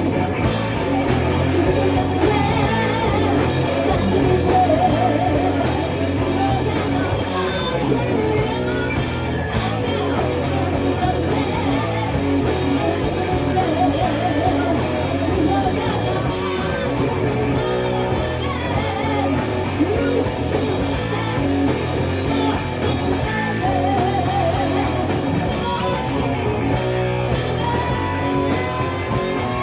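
A hard rock band playing live: a singer over distorted electric guitars, bass and drums.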